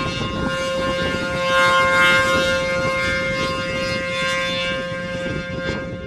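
ACA P-15 rotating outdoor warning siren sounding the Alert signal: one steady pitch held without rising or falling. It swells loudest about two seconds in as the rotating horn faces the listener, then fades as the horn turns away. Wind buffets the microphone underneath.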